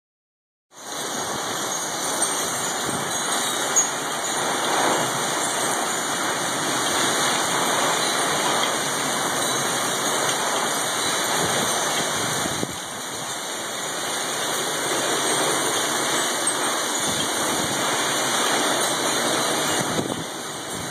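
Heavy rain pouring steadily, a dense unbroken hiss of a downpour falling on lawn and patio.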